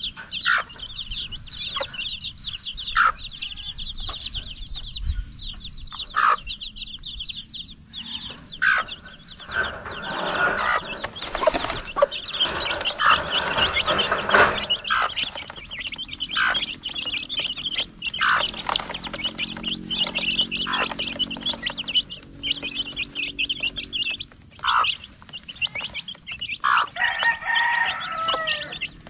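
Domestic hen and her chicks: the chicks peep in a constant high chorus while the hen gives short clucks every few seconds, as they feed from a bowl.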